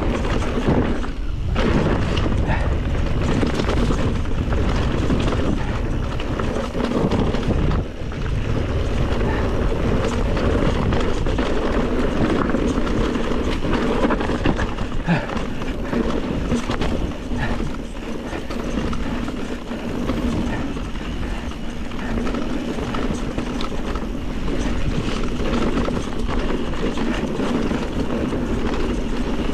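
Mountain bike being ridden down a dirt trail: steady tyre and wind noise on the microphone, with frequent knocks and rattles from the bike over the rough ground.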